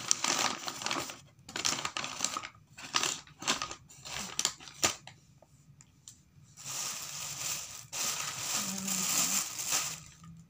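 Paper food wrappings being unfolded and crinkled by hand, in irregular bursts of rustling, with a short pause about halfway through and then a longer stretch of rustling.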